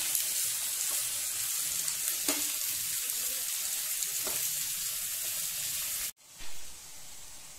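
Chopped onions sizzling in hot oil in a non-stick frying pan while a spatula stirs them, with a few faint scrapes. The sizzle drops suddenly about six seconds in and carries on quieter.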